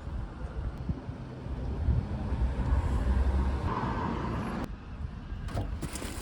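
Road traffic noise: a steady low rumble of passing vehicles. It changes abruptly about three quarters of the way through, as if the recording cuts.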